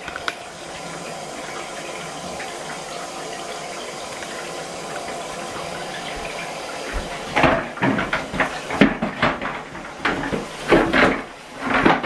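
Bath tap running steadily, pouring water into the tub. From about seven seconds in, a run of knocks and clatter as the plastic drum of the Henry vacuum cleaner is handled in the bath.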